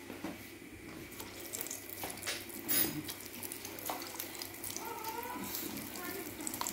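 Hot oil sizzling and crackling as besan-battered potato slices are dropped into it by hand, building up about a second in, with a sharp burst of spitting near the middle.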